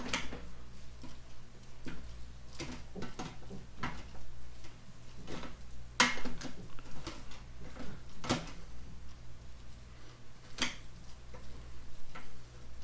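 A wooden spoon stirring cooked rice in a stainless steel Instant Pot inner pot: soft scraping with irregular knocks of the spoon against the pot, the sharpest about six and eight seconds in.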